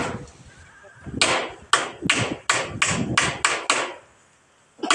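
Hammer blows fixing a corrugated roofing sheet onto a bamboo frame. After a quiet first second comes a quick run of about ten sharp strikes, roughly four a second. A short lull follows, then another strike at the very end.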